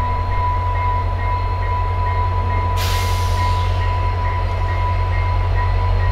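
VIA Rail F40PH diesel locomotives rumbling as they pull the passenger train slowly forward, with a steady high whine over the engine sound. About three seconds in there is a short burst of hissing air.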